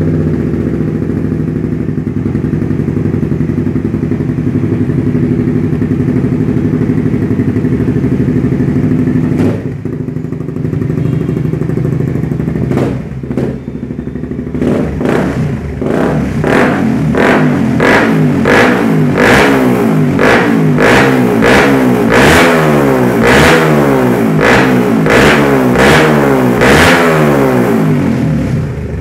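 Suzuki GSX-R150's single-cylinder engine running steadily. From about halfway through it is revved in a quick run of repeated throttle blips, the revs rising and falling each time.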